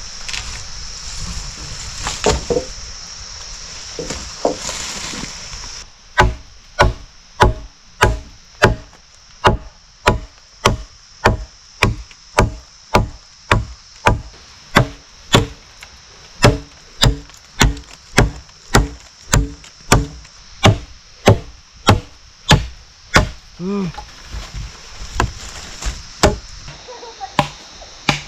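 Wood being chopped by hand with a blade: a long, even run of sharp strikes, about one and a half a second, starting about six seconds in and stopping a few seconds before the end. A steady high hiss comes before the chopping starts.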